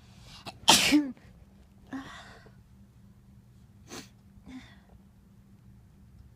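A person sneezes once, loudly, about a second in, with a voiced 'choo' that falls in pitch. Softer breaths follow around two seconds in, and a short sharp breath and another soft breath come near four and a half seconds in.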